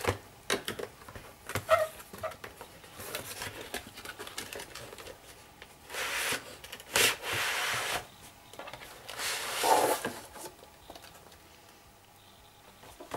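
Long cardboard box handled and opened: small taps and scuffs, then the inner box scraping out of its cardboard sleeve in a long rub about six seconds in, with a second, shorter rub a few seconds later.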